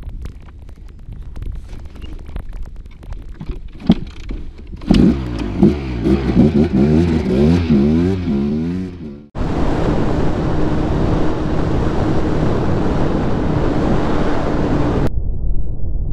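Dirt bike engine revving up and down several times as the bike pulls away, after a few scattered knocks and rustles. After an abrupt cut it becomes a steady rush of wind and engine noise from a motorcycle under way.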